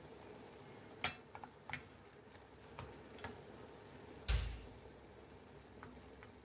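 Wooden spoon stirring boiled chicken pieces in a stainless steel pot, knocking against the pot's side in a handful of scattered clicks; the loudest, a duller knock, comes about four seconds in.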